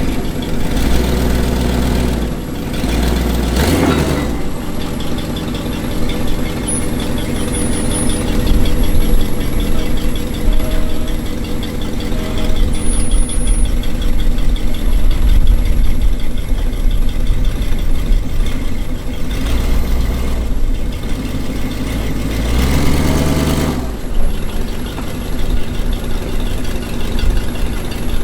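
Jeep CJ5 engine running as it drives slowly over the trail. The revs rise and fall briefly twice, a few seconds in and again near the end.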